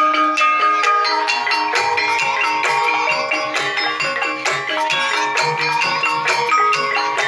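Javanese gamelan playing a Banyumasan tayub piece: struck metallophones and gongs ringing in a fast, dense run of evenly repeated notes.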